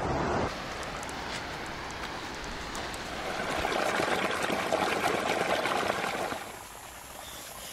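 Water gushing out of a pipe and splashing into a shallow rocky stream, a steady rushing that grows louder a few seconds in and falls away near the end.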